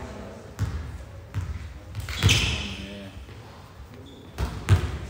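A volleyball bouncing on the hard floor of a sports hall: a few irregular thuds that echo through the hall, with a brief voice in the background.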